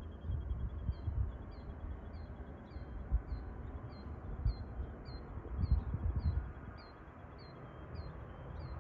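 Gusty low rumble of wind on the microphone, with a small high chirp repeated evenly about twice a second and a faint steady high trill behind it. No clear jet engine sound stands out.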